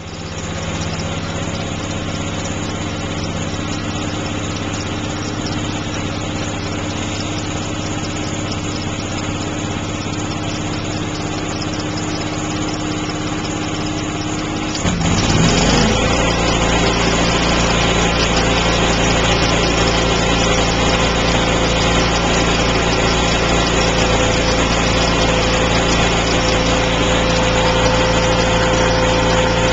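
Engine-driven portable welding machine running steadily. About halfway through its engine speeds up, with a quick rise in pitch and a step up in loudness, coming up from idle as the TIG arc is struck.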